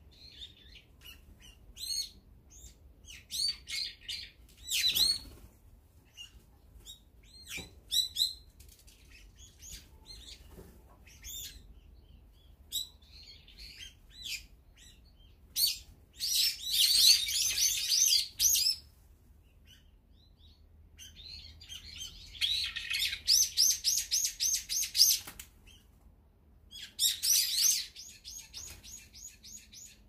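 Brown-eared bulbuls calling at a feeder: scattered chirps, then three stretches of loud, fast, harsh repeated calls, the first about halfway through, the next a few seconds later and the last near the end.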